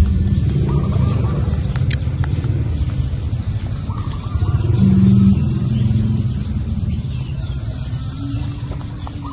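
Low rumble with a steady low hum that swells twice. Over it, a small bird gives short chirping phrases, twice.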